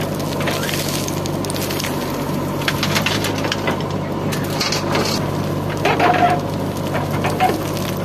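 Diesel engine of a JCB 3DX backhoe loader running steadily under a crackling, rattling patter of soil and stones pouring from its bucket. There is a brief squeak about six seconds in and another about a second later.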